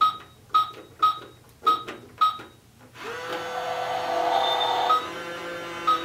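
Pink toy microwave oven: five short electronic beeps about half a second apart as its keypad buttons are pressed. About three seconds in, its steady electronic running tone starts, and one beep near the end marks the timer counting down.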